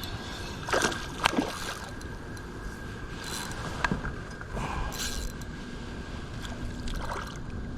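River water rushing and sloshing steadily, with a few short sharp splashes or knocks about a second in and again near four seconds.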